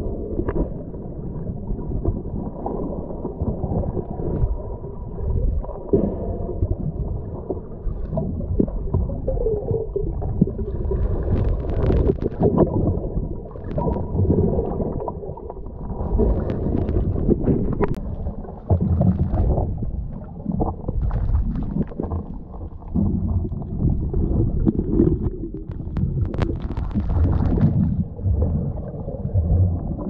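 Muffled underwater rumble and gurgling water noise picked up by a camera submerged in the sea, with scattered sharp clicks and knocks throughout.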